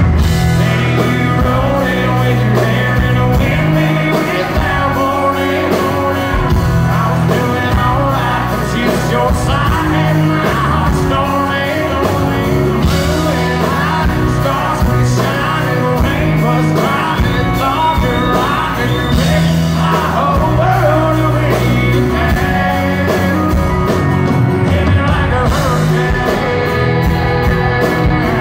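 Live country band playing a song: a male lead vocal over strummed acoustic guitar, pedal steel, electric bass and drums, with the hall's echo.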